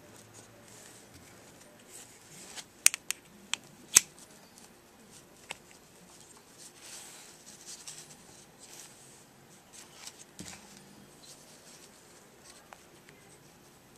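Clicks and taps of a small two-stroke engine carburetor being handled and taken apart with a screwdriver, with soft rustling between them. A quick cluster of sharp clicks comes about three to four seconds in, the loudest near four seconds.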